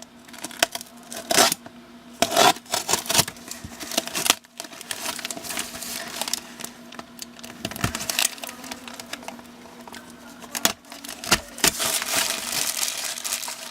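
A parcel's wrapping being torn open and crinkled by hand, in irregular rustles and rips. The wrapping is plastic.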